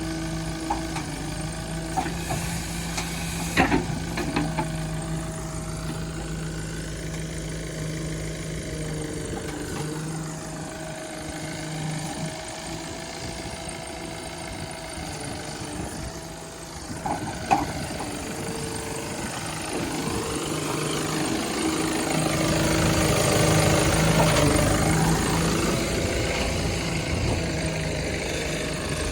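Tata Hitachi Shinrai backhoe loader's diesel engine running steadily, with two sharp knocks, one about 4 seconds in and one about 17 seconds in. The engine gets louder and fuller about three-quarters of the way through, then settles back.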